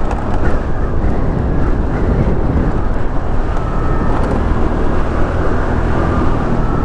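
Motorcycle engine running with steady wind and road noise: a dense, even rumble.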